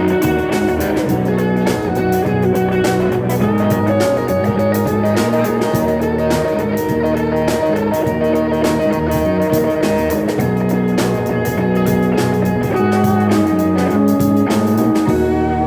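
A band playing an instrumental passage: guitar over bass, with a drum kit keeping a steady beat. The drums drop out just before the end.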